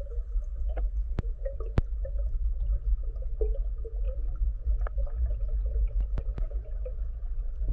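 Underwater fish-calling by a spearfishing diver: a string of short, low croaking calls repeated irregularly, with a few sharp clicks among them, over a steady low underwater rumble.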